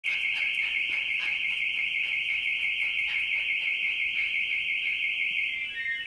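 Car alarm siren sounding: a loud, rapid warbling tone that switches to a different stepping tone pattern near the end.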